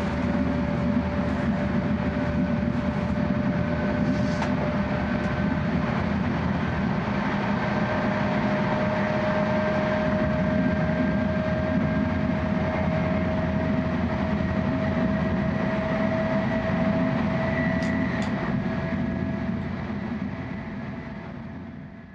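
Cabin noise of an E6-series Shinkansen car running at speed: a steady low rumble with a faint whine that rises slightly in pitch. It fades out near the end.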